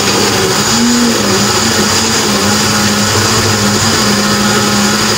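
Countertop blender running, blending a fruit-and-milk shake, its motor hum wavering slightly in pitch.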